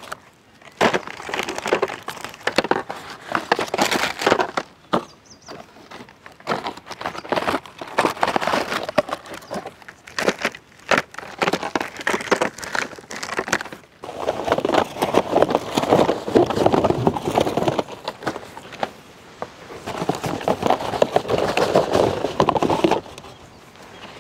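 Wrapped chocolate bars being handled: plastic wrappers crinkling and rustling, with sharp clicks and knocks as bars slide out of a cardboard box onto the heap. There are two longer, louder stretches of rustling in the second half.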